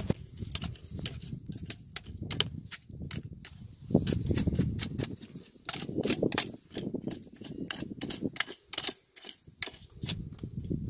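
Small hand tools tapping and scraping against rock in a crevice: a run of irregular sharp clicks, several a second, over a low rumble.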